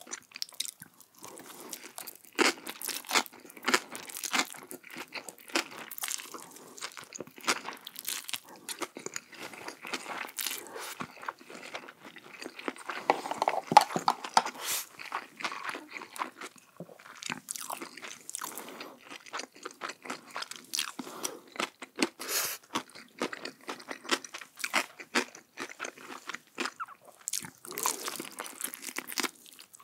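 Crunching bites and chewing of crispy Korean fried chicken, close to the microphone: many sharp, irregular crunches over chewing.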